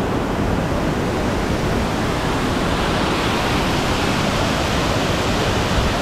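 Steady rushing of Cheeyappara Waterfalls, water cascading down the rock face.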